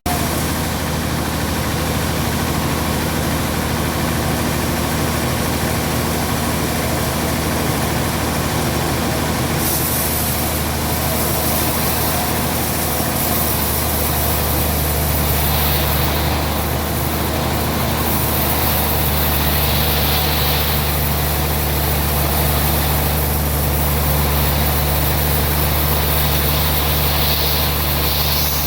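Heavy engine running steadily with a low hum that gets a little louder about halfway through, with some hiss over it.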